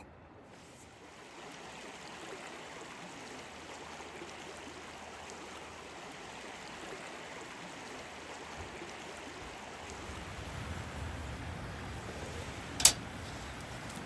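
Steady flowing water of a stream, with a single sharp click near the end.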